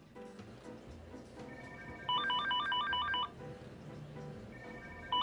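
Electronic telephone ringer trilling: one ring of rapidly alternating warbling tones about two seconds in, lasting just over a second.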